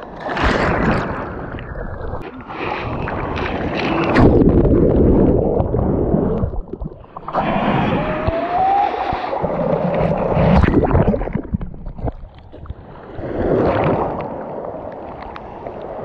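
Breaking surf churning and splashing around a camera held right at the water's surface, rising and falling in loud surges as waves wash through.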